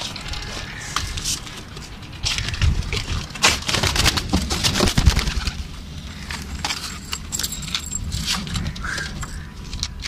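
Rattling and clicking of a wire-mesh pigeon cage being handled as hands reach in to lift out the chicks, busiest from about two to six seconds in, over a low rumble.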